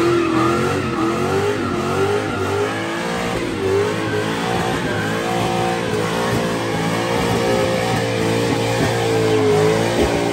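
A Ford Mustang's engine held at high revs through a burnout, its pitch wavering up and down as the rear tyres spin and smoke against the pavement.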